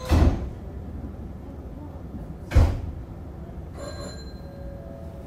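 Two heavy thuds about two and a half seconds apart, typical of a Nankai 8300-series train's sliding doors closing, over a steady low hum. A faint high chime follows briefly near the end.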